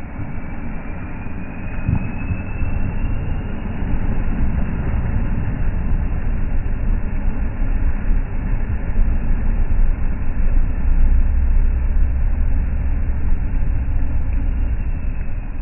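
Ford Ranger 2.2's four-cylinder turbodiesel working hard under load as the truck claws up a muddy, rocky slope, its wheels spinning in the mud. The engine sound builds over the first few seconds with a faint rising whine, is loudest about two-thirds of the way through, and falls away at the very end.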